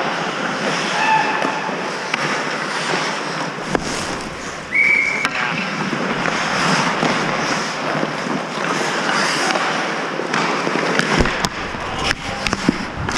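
Hockey skates scraping and carving on rink ice, a steady hiss, with scattered sharp clacks of sticks and puck and a brief high squeak about five seconds in.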